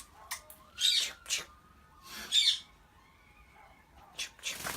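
Indian ringneck parrot splashing in a glass of water: two short splashes about a second and a half apart, with small clicks and drips between.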